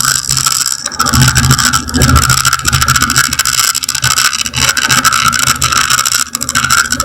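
Light aircraft's piston engine and propeller running steadily, heard from inside the cockpit, with a constant drone and rushing air noise.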